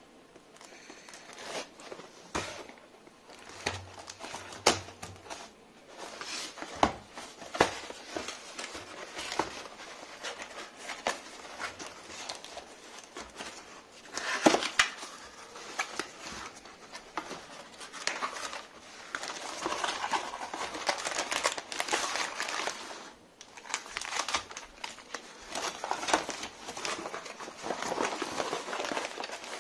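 Packing tape being peeled off a cardboard box and its flaps handled, with crinkling of foil packaging bags as the contents are pulled out: an irregular run of rustles, scrapes and sharp clicks.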